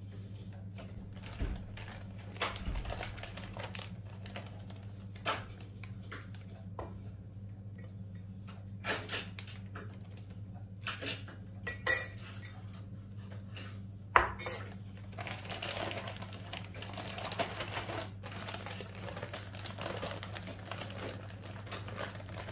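A spoon clinks and taps against ceramic bowls and a plastic zip-lock freezer bag as flour and salt go in, with the sharpest clicks near the middle. From about two-thirds of the way through, the plastic bag rustles and crinkles as it is handled. A low steady hum runs underneath.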